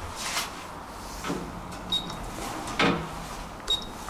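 Elevator door handling and button presses: a loud thump from the glass elevator door just under three seconds in, and two short high beeps with clicks from the push buttons, one before it and one after.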